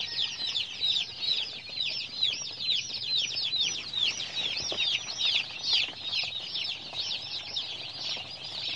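A pen of many broiler chicks peeping nonstop, with high-pitched chirps overlapping into a continuous chorus.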